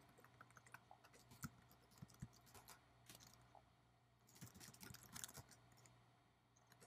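Faint typing on a computer keyboard: irregular clicking keystrokes in two quick flurries, over a low steady hum.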